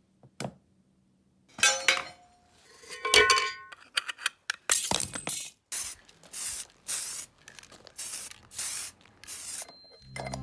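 Small metal parts clinking and ringing twice, then a run of about seven short, sharp hissing sprays, each under half a second.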